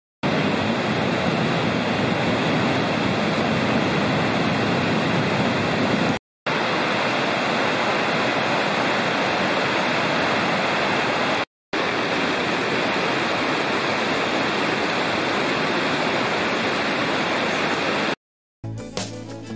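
Loud, steady rushing of high white water pouring over a weir and rocky cascades. It comes in three takes joined by brief silent cuts and ends abruptly. Violin music begins right at the end.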